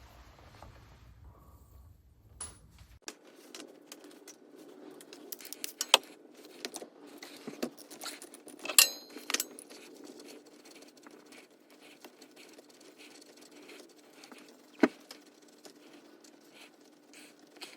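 Metal tools and bolts clinking and tapping at irregular intervals while a car's axle bolts are undone from the differential, with a few sharper metallic clanks; the loudest, about two thirds of the way in, rings briefly.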